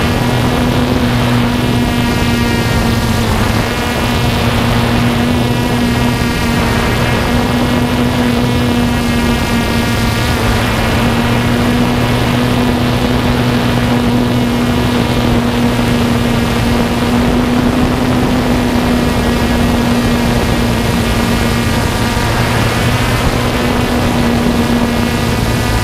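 Camera drone's motors and propellers buzzing in flight, a loud, steady hum heard from the drone's own camera.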